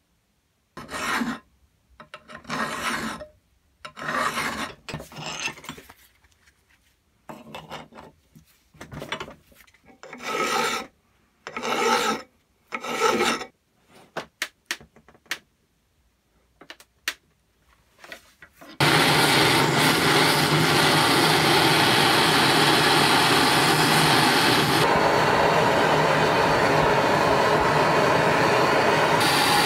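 A run of short scraping, rubbing strokes, metal on metal, with a few sharp clicks, as the rusted, seized bolt cutter is worked. About two-thirds of the way through, a steady loud hiss starts suddenly: two handheld butane blowtorches burning, heating the seized jaws.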